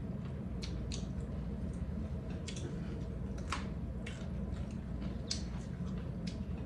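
Eating sounds: irregular short, wet clicks and smacks of chewing, over a steady low hum.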